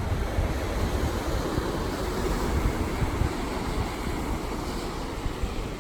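Pacific Ocean surf washing steadily on the beach, with wind buffeting the microphone in a low, gusty rumble.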